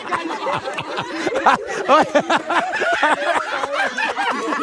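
A group of people laughing and chuckling together, many voices overlapping.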